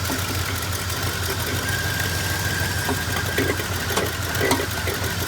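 1971 Oldsmobile Cutlass S engine idling rough and steady just after a hard cold start: it is not firing on all cylinders yet.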